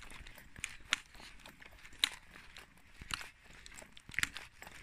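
Trekking pole tips striking a wet tarmac road in a walking rhythm: sharp clicks about once a second, with faint footsteps between them.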